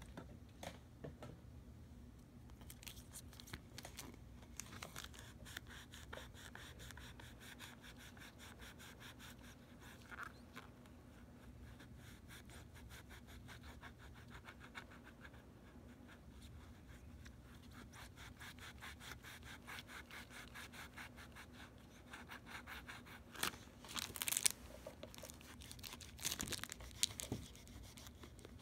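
A cloth damp with rubbing alcohol rubbed back and forth over the plastic of PDLC smart film, a long run of quick, even wiping strokes, cleaning the film's edge before the copper tape goes on. Near the end come louder crinkles as the plastic film sheet is handled.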